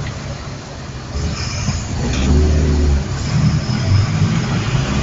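Car engine and road noise heard from inside a moving car, the low engine rumble growing louder from about two seconds in as the car picks up speed.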